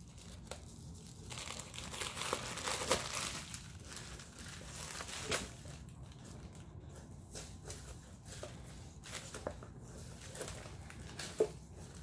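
Tissue paper rustling and crinkling as it is handled. The rustle is loudest for a couple of seconds near the start, and small clicks and taps of handling follow through the rest.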